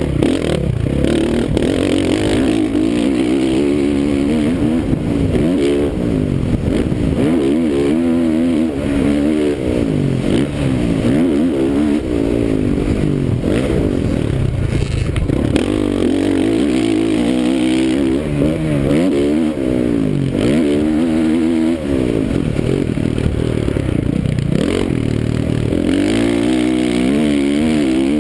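Motocross dirt bike engine revving hard through a lap, its pitch climbing and dropping again and again every second or two as the throttle is opened and shut through gears, jumps and corners.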